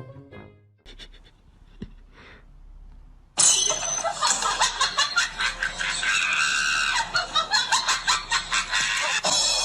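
Loud screaming and laughing that break in suddenly about a third of the way in, with quick pulsing bursts near the end.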